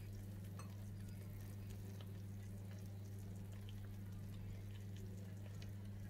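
Faint crackling and ticking of a hot, just-baked pizza's melted cheese and toppings sizzling on the baking tray, over a steady low hum.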